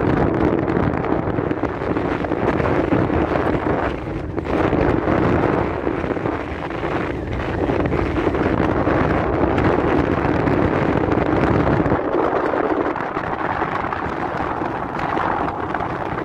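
Strong wind buffeting the microphone: a loud, continuous rushing noise that rises and falls with the gusts.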